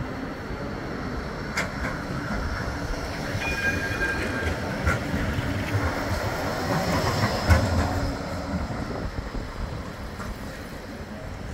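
A Bombardier Flexity 2 tram passes close by. Its wheels rumble on the rails with scattered clicks, building to a peak about seven seconds in and then easing off.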